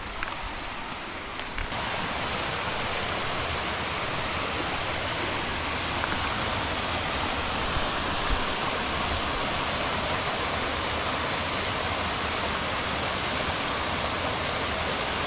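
Small mountain creek cascading over rocks into a shallow pool: a steady rush of water, louder from about two seconds in.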